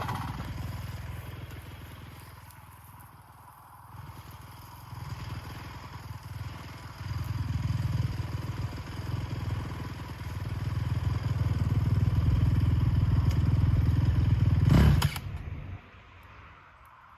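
Honda TRX450 quad's single-cylinder four-stroke engine running, its sound falling and rising again, then holding steady and loudest for a few seconds before dropping off sharply near the end.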